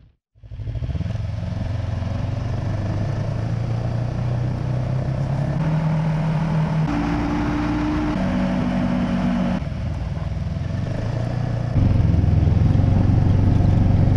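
Ski-Doo Grand Touring snowmobile engine running under way. Its pitch steps up around the middle, drops back, and the engine grows louder near the end.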